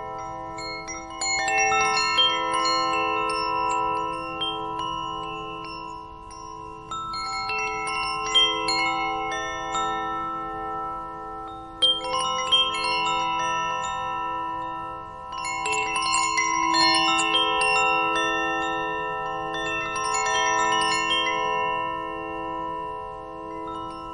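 Chimes ringing, struck in irregular clusters every four or five seconds, each group of notes ringing on and fading before the next.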